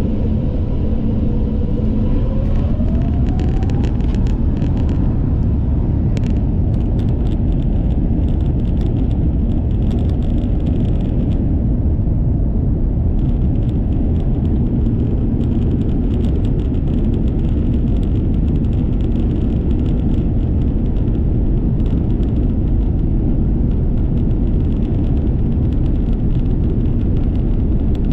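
Airbus A350-900's Rolls-Royce Trent XWB engines heard inside the cabin on the takeoff roll: a whine rises in pitch over the first few seconds as the engines spool up, then a loud, steady rumble carries on. Light crackling and rattling runs through much of it.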